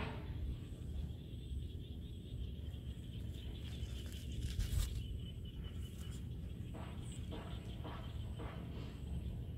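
Open-air field ambience: a low wind rumble on the microphone under a steady high drone that fades out about halfway. There is a brief rustling burst around the middle, then a few short scuffling sounds as two baby macaques play on a concrete post.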